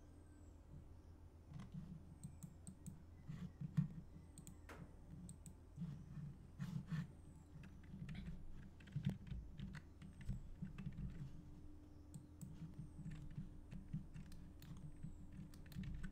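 Computer keyboard and mouse clicks: irregular, scattered taps over a faint steady low hum.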